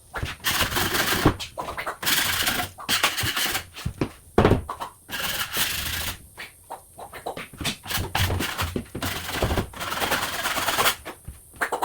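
Drywall knife scraping across drywall, a run of scraping strokes of about a second each with knocks and clicks of the blade between them, as dried joint compound is knocked off and fresh mud is spread.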